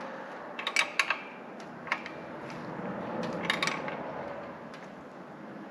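Small metal parts and hand tools clinking and clicking, in a few short clusters of sharp taps over a low steady background hum.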